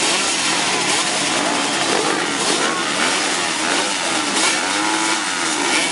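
A pack of motocross bikes running together at the start gate, their engines revving, with many pitches rising and falling over one another.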